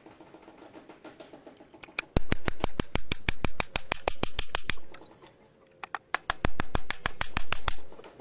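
Hammer driving a nail into a wooden board with quick, even strikes, about six a second, in two runs with a short pause between them.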